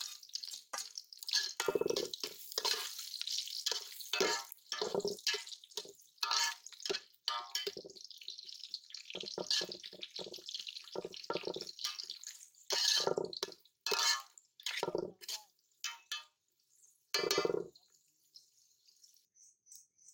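Liquid poured from a bowl into an aluminium pot of sliced onions, garlic and green chillies, then a metal spatula stirring and scraping through the wet mix in irregular splashy strokes. The strokes stop near the end.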